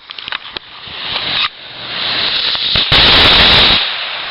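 A firecracker going off: a few sharp crackles near the start, then a loud burst lasting just under a second about three seconds in, over a steady hiss.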